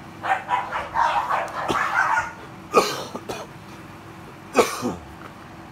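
A person coughing: two sharp coughs about two seconds apart, after a run of shorter scattered sounds.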